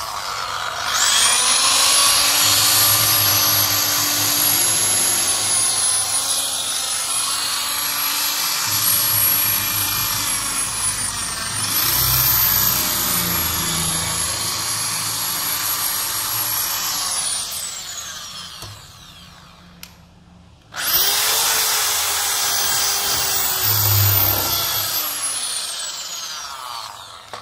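Bosch electric drill running under load, drilling screw holes through a brush door seal's mounting strip: a steady high motor whine. One long run winds down after about 17 seconds, there is a brief stop, then a second shorter run winds down near the end.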